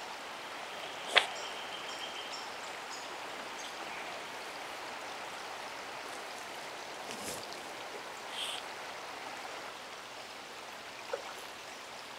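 Steady rushing of a shallow river's current, with a single sharp click about a second in and a few faint high chirps.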